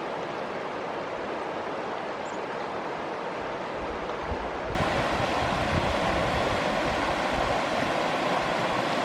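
River water rushing steadily over rapids. About halfway through it steps up suddenly, louder and brighter.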